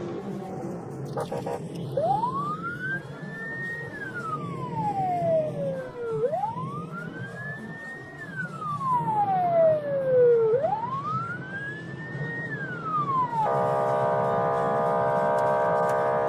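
Police car siren wailing in three slow rises and falls, each about four seconds long, then switching near the end to a steady, buzzing tone.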